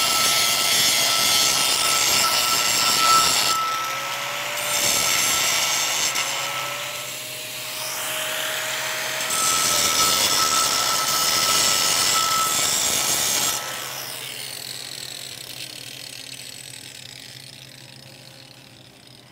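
Makita angle grinder grinding slag out of a 6010 root-pass weld on a steel plate, a loud grinding noise with a thin high whine that eases off twice as the load changes. About 14 seconds in it is switched off and winds down, its pitch falling as it fades.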